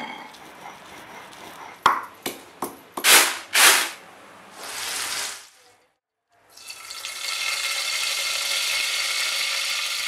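A quick run of sharp clicks and knocks, then, after a short break, oil sizzling steadily in a pan for about four seconds as green chillies fry in it.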